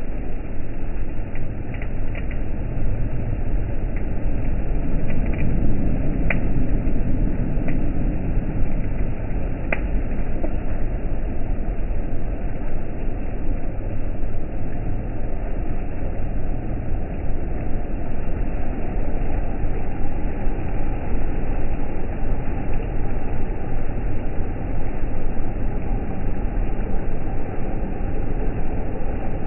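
Ferry's engine running steadily while its propeller churns the water into a turbulent wash against the hull: a continuous deep rumble mixed with rushing water.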